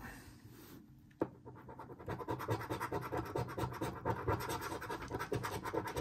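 A coin scratching the scratch-off coating of a paper lottery ticket in quick, even back-and-forth strokes. The scratching starts with a single tap about a second in.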